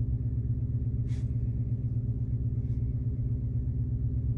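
Car engine idling, heard from inside the cabin as a steady low rumble, with a brief soft hiss about a second in.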